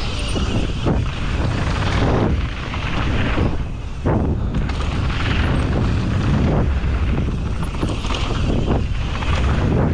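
Mountain bike descending a dirt and rock trail: heavy wind rumble on the microphone over tyre noise, with a knock or rattle from the bike every second or two as it hits bumps.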